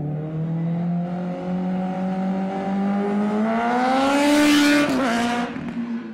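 Intro sound effect of a racing engine accelerating, its pitch climbing steadily for about four seconds. Then comes a loud rush and a sudden drop in pitch as it passes by, and it holds at a lower note until the end.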